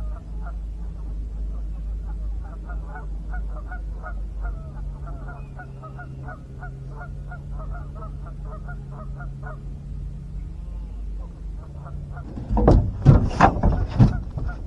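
Geese honking in a rapid run of short calls over a steady low motor hum. Near the end comes a burst of loud sharp knocks and thumps.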